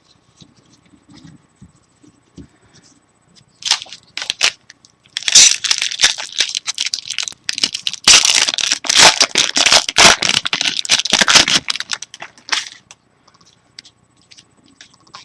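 A trading-card pack's foil wrapper being torn open and crinkled by hand, in several rustling spells over about eight seconds.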